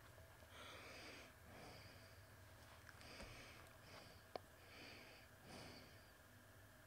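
Near silence: faint room tone with a few soft hissing sounds and a single sharp click about four seconds in.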